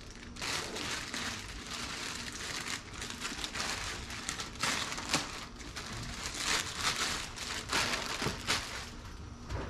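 Plastic poly shipping mailer crinkling irregularly as it is handled, torn open and a cardboard box pulled out of it.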